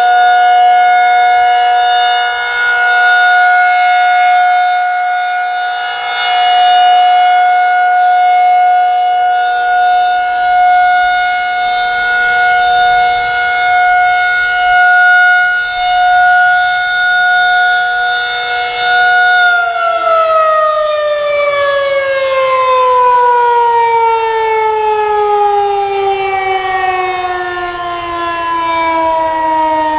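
Federal Signal 2001-SRN rotating outdoor warning siren sounding its steady alert tone, rising and falling in loudness as it turns. About two-thirds of the way through it shuts off and the pitch winds down in a long falling glide: the end of its three-minute alert cycle.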